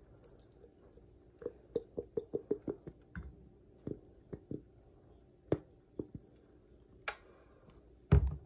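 Plastic honey bottle being handled and squeezed over a ceramic mug: a quick run of small clicks and squishes about a second and a half in, then a few scattered taps, and a low thump near the end.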